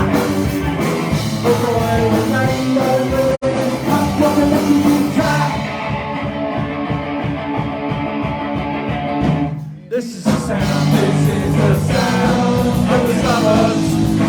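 Live punk rock band of electric guitars, bass guitar and drums playing a song's instrumental opening. A little before ten seconds in, the top end thins out and the sound dips briefly before the full band comes back in.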